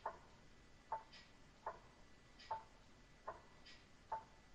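Faint, regular ticking like a clock, about one tick every 0.8 seconds. Each tick has a short ring to it.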